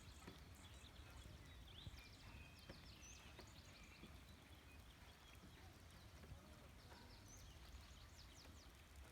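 Faint birds chirping in a natural outdoor ambience: short high notes, little upward-curving calls and quick clicking trills repeated throughout, over a low steady rumble.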